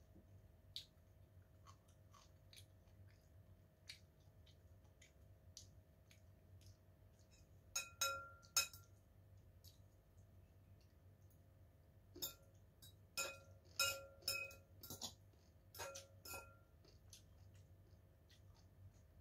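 Metal fork clinking and scraping against a white bowl in two bunches of strokes, one about 8 seconds in and another from about 12 to 16 seconds, each stroke ringing briefly. Faint scattered clicks, as of chewing, fall between.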